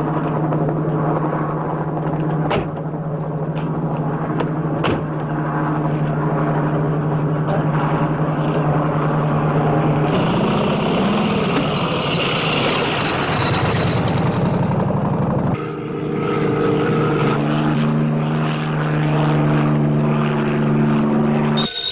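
A steady engine drone, even in pitch, that wavers and rises for a few seconds partway through, then switches abruptly to a different steady engine note about two-thirds of the way in.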